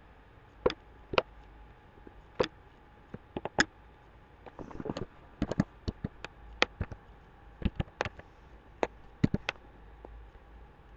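Computer mouse and keyboard clicks: a few scattered single clicks, then a run of keystrokes typing a short word.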